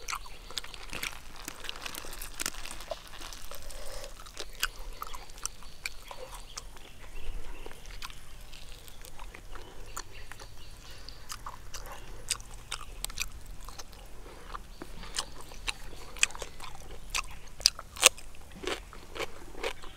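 Close-up eating sounds: biting and chewing, with many irregular sharp crunches and clicks, the loudest a couple of seconds before the end.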